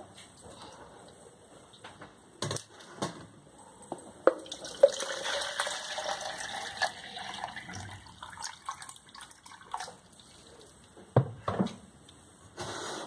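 Water poured from a plastic pitcher into a plastic measuring jug: a steady splashing pour of a few seconds starting about four and a half seconds in. Hollow plastic knocks and clicks come as the containers are picked up and set down.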